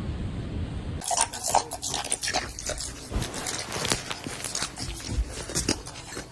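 An animal chewing or biting something crunchy close to the microphone: irregular crunches and clicks, starting suddenly about a second in after low rumbling noise.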